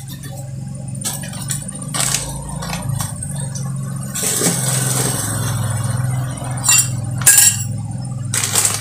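Cotton candy machine's electric motor running steadily with a low hum, spinning the head. Several sharp clinks and knocks of things being handled come on top, the loudest near the end.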